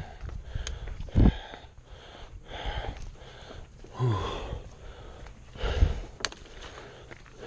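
A person breathing hard from the exertion of climbing steep steps, with heavy breaths about once a second and a few low bumps.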